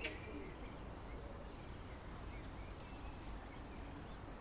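Faint garden ambience: a low background rumble, and a thin, steady, high-pitched call from a small bird or insect that starts about a second in and is held for about two seconds.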